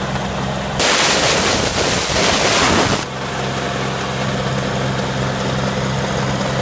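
Engine of a ride-on thermoplastic striping machine running steadily. About a second in, a loud hiss starts suddenly and cuts off about two seconds later.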